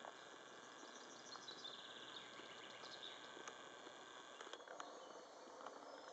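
Faint meadow ambience: insects chirping with a few high bird calls, and a handful of small clicks.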